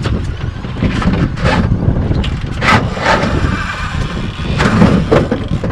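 Wind buffeting the microphone on an open boat: a steady rumble with several short hisses as gusts hit.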